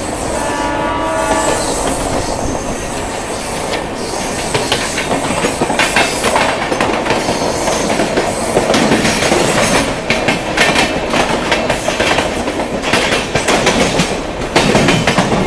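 Rajdhani Express electric push-pull passenger train passing close by. A train horn sounds for about the first second and a half, then comes a continuous rush of wheels with repeated clickety-clack over the rail joints. It swells near the end as the rear electric locomotive goes past.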